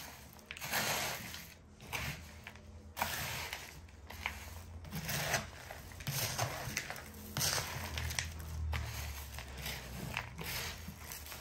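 Irregular crunching and crinkling of dry chicken chatpate, a crisp puffed-rice snack, with a burst about every second.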